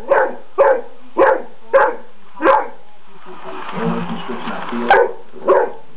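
Great Dane barking in short, loud single barks: five in quick succession, a pause, then two more near the end.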